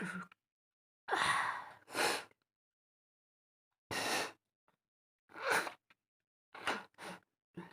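A woman's short, sharp gasping breaths and sniffs, about seven in a row, as she tickles her nose with rolled paper to force a sneeze.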